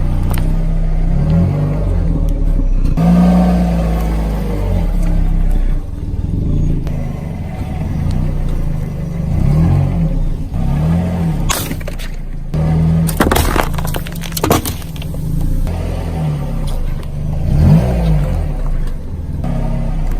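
Vehicle engine running and revving up and down several times, with a sharp burst of crunching and cracking a little past the middle as something breaks under it.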